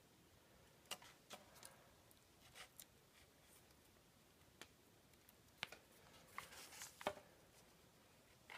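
Near silence broken by faint, scattered clicks and light taps of small hardware being handled on a cloth-covered table: a wood screw and its box, and a hot glue gun picked up near the end.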